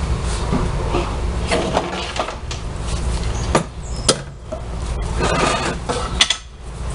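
Parts of a washing-machine transmission being handled: scraping and a few sharp knocks and clinks, the clearest about halfway through and near the end, over a steady low hum.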